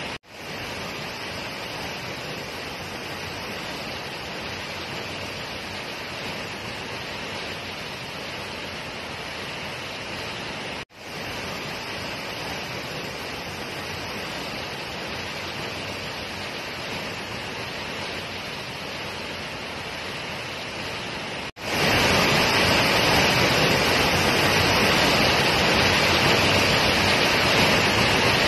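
Waterfall plunging into its pool: a steady, unbroken rush of falling water. It cuts out for an instant near the start and again about a third of the way in. After a third brief dropout, about three-quarters of the way in, it comes back much louder.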